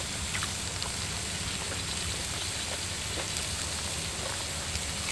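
Steady sizzle of food cooking on a mukata grill pan over a charcoal stove, with a few faint clicks.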